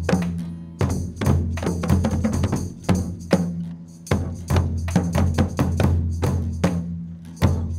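Live percussion-led music from a children's stage ensemble: rhythmic hand-drum hits over held low keyboard notes, with a short lull about four seconds in.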